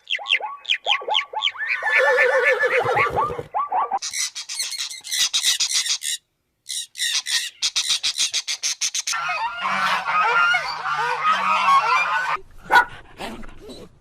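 Poultry calling: a run of repeated honking calls, then rapid high-pitched chirping in two stretches with a short break between, then dense overlapping flock chatter that thins out near the end.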